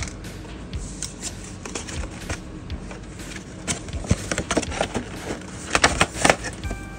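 Small cardboard boxes and packaging being handled on a desk: a run of light taps, knocks, scrapes and rustles, thickest in the second half.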